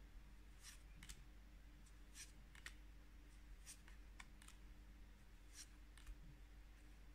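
Faint, irregular soft clicks and flicks of cardboard trading cards being slid one by one off the front of a hand-held stack, about nine in all.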